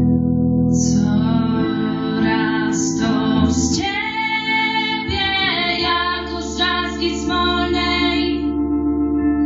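Two young women singing into microphones over a sustained instrumental backing; the voices come in about a second in.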